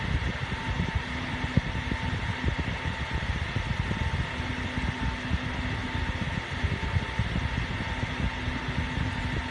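Cooling fans of rack-mounted storage equipment, including EMC VNX disk array enclosures, running with a steady whir and a faint constant hum.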